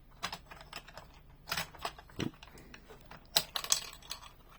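Plastic toy parts and a small toy dump truck clicking and clacking as they are handled and loaded, in irregular separate taps, the sharpest about a second and a half in and again past three seconds.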